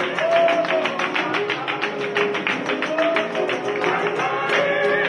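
Music with a fast, even beat of about six strokes a second under a held melody line.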